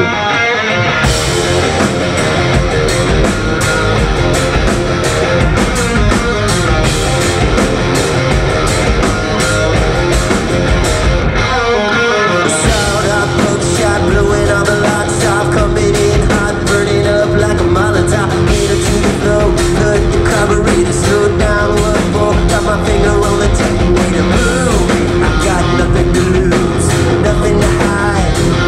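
Rock band playing live through a club PA: electric guitars, bass guitar and drums. The drums and low end drop out briefly about twelve seconds in, then the full band comes back in with a held guitar note.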